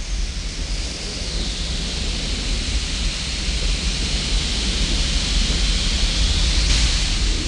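Eruption sound effect for a vapour plume venting from an icy moon's surface: a loud rushing hiss over a deep rumble, growing a little louder.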